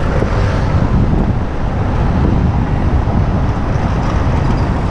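Wind buffeting the microphone of a camera on a moving bicycle: a loud, steady rumble.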